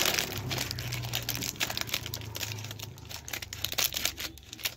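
Plastic wrapper of a surprise packet crinkling and tearing as it is pulled open by hand, a rapid run of crackles over a low steady hum.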